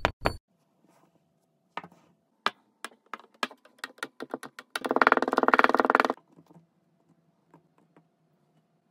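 Two kinetic sand blocks drop into a glass with sharp thuds, followed by scattered crackles of sand being packed. About five seconds in comes a second-long buzzing creak as a wooden tamper presses the sand down into the glass.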